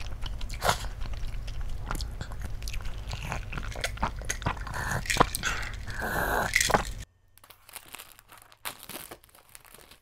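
Close-miked eating sounds: chewing and sipping noodle broth from a bowl, then gulping water, with many small wet clicks. About seven seconds in it cuts off to a much quieter stretch with only a few faint clicks.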